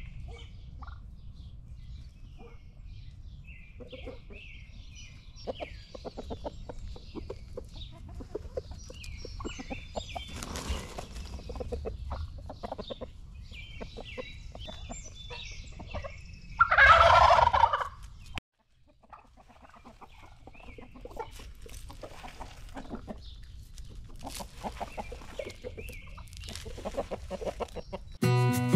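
Farm poultry clucking and calling, many short calls one after another, with one loud call lasting about a second and a half about 17 seconds in. A steady low rumble runs underneath, and the sound cuts out briefly about 18 seconds in before the calls resume.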